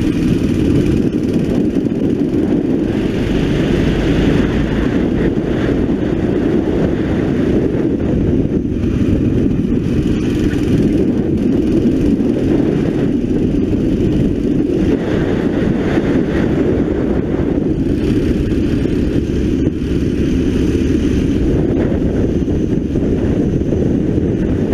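A 9 hp racing kart's engine running hard through a lap, heard close from the kart, picking up as the kart accelerates out of a corner near the end. Wind rushes over the microphone throughout.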